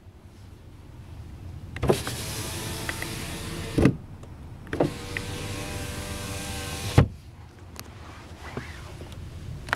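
Electric window motor of a 2011 Volkswagen Passat whirring as the door glass is run, in two runs of about two seconds each. Sharp clunks come as each run starts and stops.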